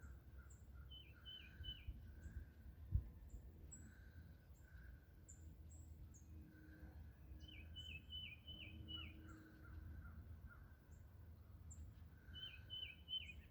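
Faint songbirds chirping: three short runs of four to six quick, falling notes spaced several seconds apart, with single high peeps between them, over a low steady background rumble.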